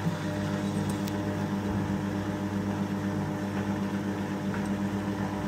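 Rex front-loading washing machine's drain pump switching on with a click and humming steadily as it pumps out the wash water, the first stage of a short spin programme.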